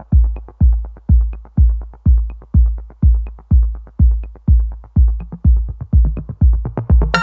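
Background electronic dance music: a steady drum-machine kick at about two beats a second, with a brighter synth layer coming in near the end.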